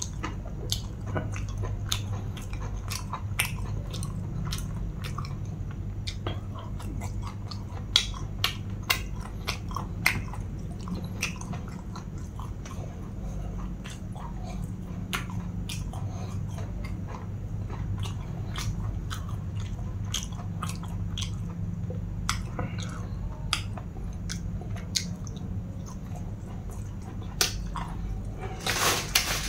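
Close-up mouth sounds of a person eating: chewing and biting with many sharp, wet clicks and smacks over a steady low hum. A rush of hiss rises just before the end.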